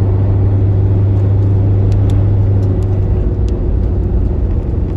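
Road and engine noise of a car driving on a highway, heard from inside the cabin: a steady low rumble with a strong low hum that eases off about three seconds in.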